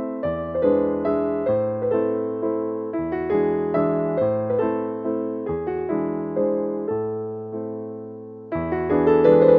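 Background piano music: a gentle tune of struck notes over a slow-moving bass. It fades down and then comes back in fuller near the end.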